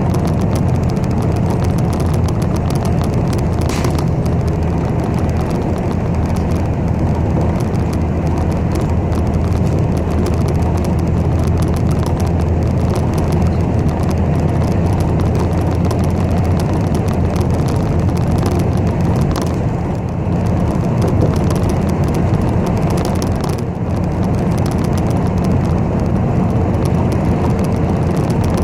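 Steady low engine and road rumble heard from inside a moving city bus, with two brief knocks, one a few seconds in and one about two-thirds of the way through.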